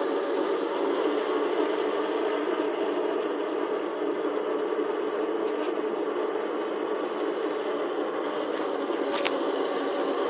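Heng Long M1A2 Abrams RC tank driving: a steady mechanical whir with a faint whine, and a few short clicks about halfway through and near the end.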